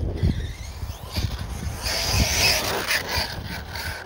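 A brushless-motor Arrma Outcast RC car running across rough grass, with a louder burst of noise about two seconds in lasting about half a second. Wind rumbles on the microphone.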